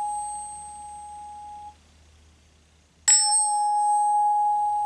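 Aluminum tuning fork ringing with one clear, steady mid-pitched tone and a faint high overtone. The ring stops abruptly a little under two seconds in, and after a short silence the fork is struck again about three seconds in and rings on loudly.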